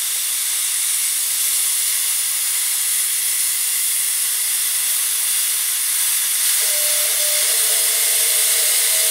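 Refrigerant gas hissing steadily out of a hose fitting cracked open at the recovery cylinder, purging air from the recovery lines. About two-thirds of the way through a low whistle joins the hiss: the change in sound that shows the refrigerant has come all the way through the lines.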